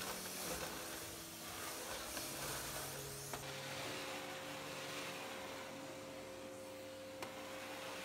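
Vacuum cleaner running steadily as its floor head is pushed along a laminate floor, with soft, sustained background music notes underneath.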